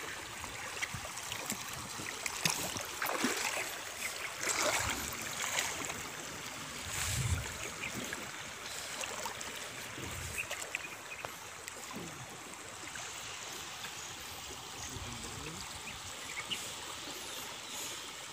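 Shallow rocky river flowing steadily, with a few brief splashes and sloshes from wading through the water in the first half.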